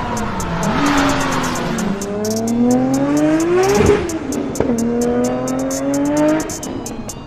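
Toyota Supra's big-turbo 2JZ inline-six accelerating hard, its pitch climbing steeply through the revs. About four seconds in, the pitch drops sharply on a gear change, then climbs again before the engine falls off near the end.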